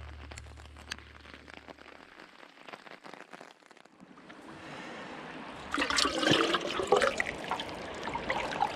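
Water splashing and gurgling as a plastic bucket is dipped into a shallow, rocky stream and fills. The stream's flow rises in gently first, and the loud rush of water into the bucket begins about six seconds in.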